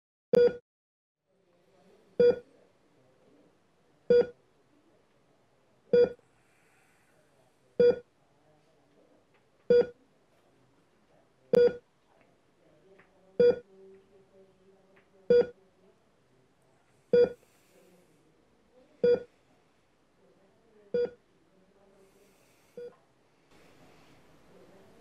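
Hospital patient monitor beeping: a single short mid-pitched beep about every two seconds, steady and even, the last couple fading away near the end.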